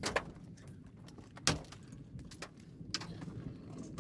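A few sharp clicks and knocks, three in all, over a low steady rumble.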